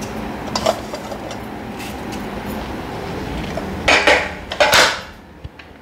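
Mustard seeds sizzling in hot oil in a stainless steel kadai for a tempering, with scattered small pops. Two louder noisy bursts come about four seconds in, and then the sound falls away near the end.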